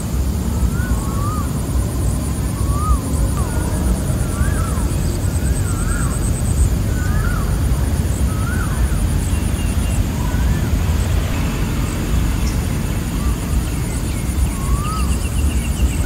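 Evening birds and insects at a reservoir: short rising-and-falling bird calls repeat about once a second over fast, high-pitched insect trills that stop and start. A loud, steady low rumble runs underneath.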